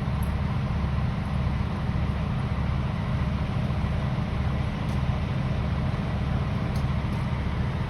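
Fire truck engine idling: a steady, deep rumble that does not change.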